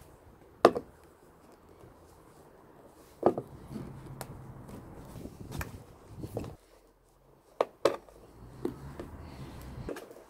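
Sharp plastic clicks and knocks as a VW T25's original washer jet is prised and pulled out of its hole in the bodywork, about eight at irregular spacing, with faint handling rustle between them.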